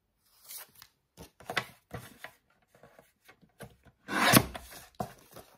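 Paper and cardstock being handled and rustling, with small taps on the table, then a paper trimmer (Vaessen Creative) cutting a card blank with one short scrape of the sliding blade about four seconds in, the loudest sound.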